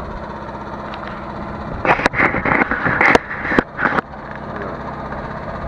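Truck engine idling steadily. From about two seconds in, a steel chain rattles and clanks in a rapid irregular run for about two seconds as it is thrown and dragged over the loaded stone block.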